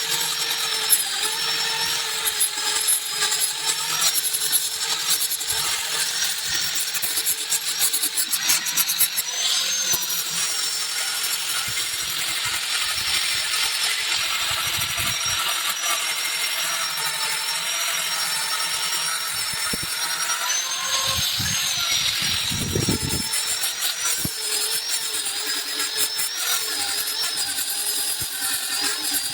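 Handheld electric power tool abrading a solid wood table, most likely a sander stripping the old finish. It runs continuously, and its high whine wavers slightly as it bears on the wood.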